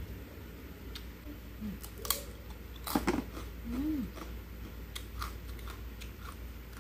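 A metal spoon clinking against a ceramic soup bowl a few times, sharpest about two and three seconds in, amid chewing and slurping of chicken soup. A couple of short low hums are mixed in.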